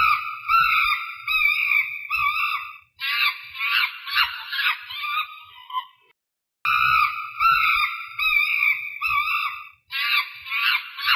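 Chimpanzee calls: high-pitched, wavering cries in quick succession that grow rougher and denser after about three seconds. After a short break about six seconds in, the same stretch of calls plays again.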